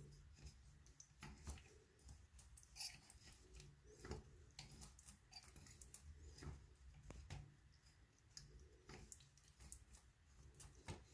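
Faint, irregular clicking and scraping of a tubing cutter being turned around a copper pipe to cut it.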